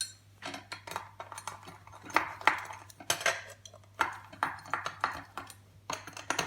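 Irregular metallic clicks and clinks of a screwdriver working small screws out of a Wi-Fi box's cast aluminium case, with the case and parts being handled.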